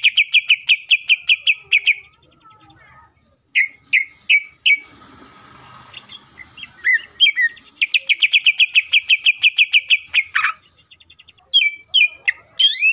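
Male greater green leafbird (cucak ijo) singing. Two fast trills of sharp repeated notes, about eight a second, with a few single notes between them, then a sharp falling note about ten seconds in and a few more notes near the end.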